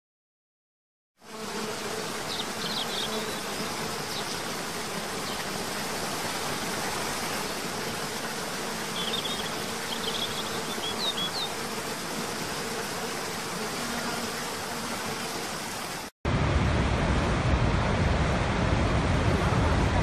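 After about a second of silence, a waterfall rushes steadily, with a faint steady hum and a few short bird chirps. About 16 s in it cuts to the louder, deeper rush of a huge waterfall, Niagara's Horseshoe Falls.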